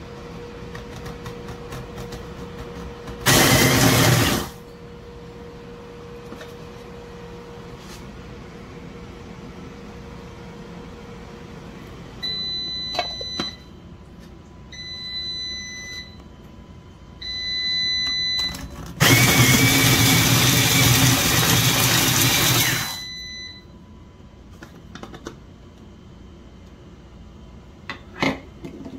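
Proctor Silex electric mini food processor run in pulses by pressing down its lid, its blade chopping vegetables. There is one loud burst of about a second, then three short runs with a high motor whine, then a longer run of about four seconds.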